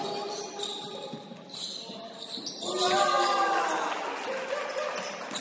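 Basketball being dribbled on a hardwood court, the bounces echoing in the gym. About three seconds in, a longer pitched sound rises over it for a second or two.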